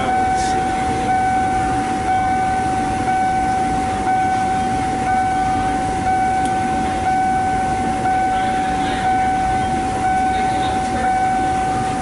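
A steady high-pitched electronic tone with a faint pulse about once a second, over a continuous low rumble.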